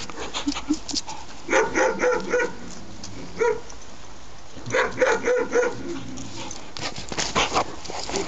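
Puppies barking and yipping in quick runs of several short barks, four runs in all with pauses between.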